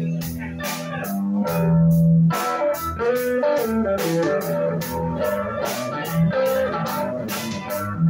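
Live blues-rock band: an electric guitar holds low notes, then plays a moving single-note lead line from about two seconds in, over a drum kit keeping a steady cymbal beat.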